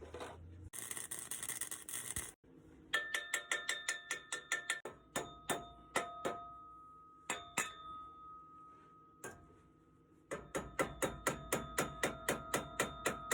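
A brief hiss of a welding arc laying a spot weld, then a hammer striking the steel exhaust tailpipe in quick runs of blows, each one ringing, with a slower stretch in the middle.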